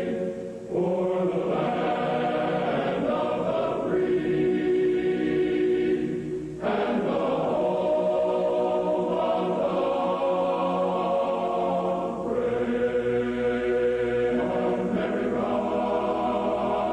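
A choir singing a national anthem slowly, in long held chords. The phrases run about six seconds each, with a short break between them.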